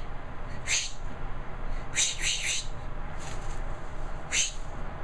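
Cockatoo making short, raspy, breathy calls, about six of them at irregular intervals.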